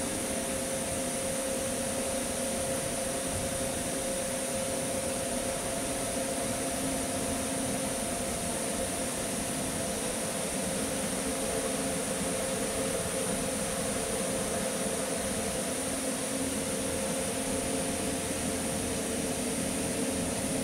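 Steady hum and whir of an inverter MIG welding machine's cooling fan, idling with no arc struck, with a faint high whine above it.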